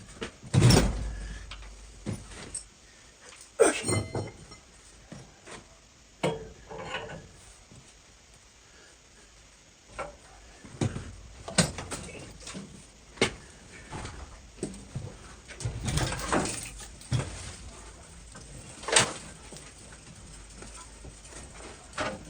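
Irregular knocks and metallic clunks, with a few short clinks, as the steel car-body rotisserie and the Karmann Ghia shell on it are handled and turned.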